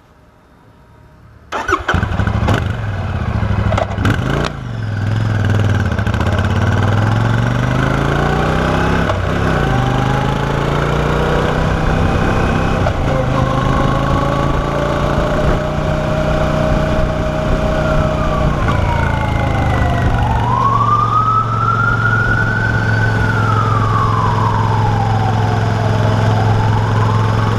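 Royal Enfield Shotgun 650's 648 cc parallel-twin engine starting about a second and a half in, blipped up and back down twice, then settling into a steady idle. Near the end, a tone slowly rises and falls over the idle, like a siren.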